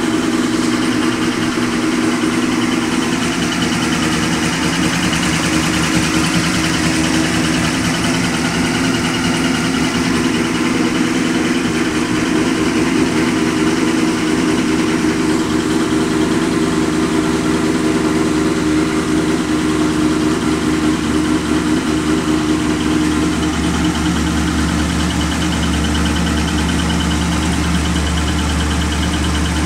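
Car engine idling steadily with the tapping of noisy valve lifters, the lifter noise the owner is recording.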